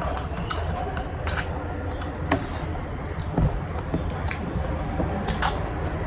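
Close-up chewing and lip-smacking of people eating rice and chicken heads and feet by hand: scattered short wet clicks and smacks over a steady low background rumble.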